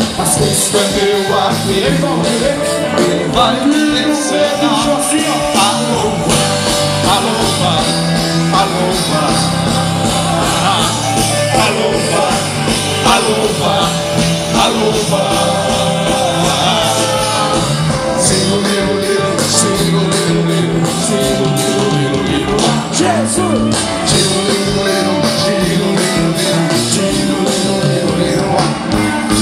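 Live worship band playing a song: electric guitars, drums and keyboard, with singing.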